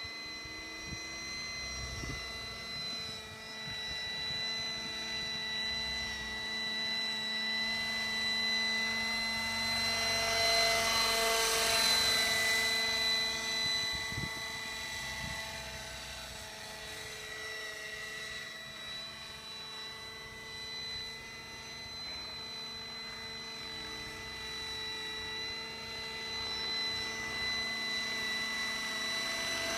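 Radio-controlled scale Gazelle model helicopter in flight: a steady high whine from its rotors and fenestron ducted tail fan. It grows louder about ten to thirteen seconds in, then eases back.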